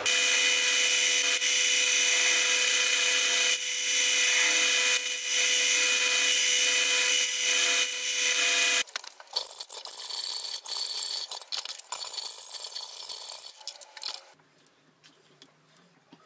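Metal lathe running while a carbide insert tool turns a point on the centre of a small steel spur drive held in a collet chuck: a steady loud cutting hiss over several steady whining tones. About nine seconds in the cutting turns quieter and uneven, and about fourteen seconds in it falls to faint clicks.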